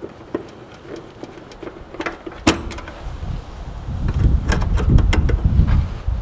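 Needle-nose pliers and metal spade connectors clicking as thermostat wires are pulled off an air-conditioner contactor: a few sharp clicks, the loudest about two and a half seconds in. A low rumble builds over the second half.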